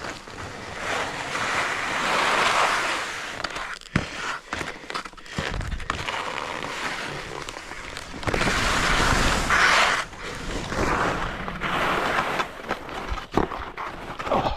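Skis scraping and hissing over packed snow, swelling with each turn and easing between them, with scattered clicks.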